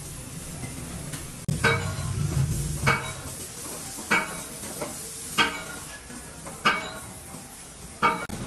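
Metal being struck six times at an even pace, about once every second and a quarter, each blow ringing briefly: hammer blows on metal. A steady background noise runs underneath.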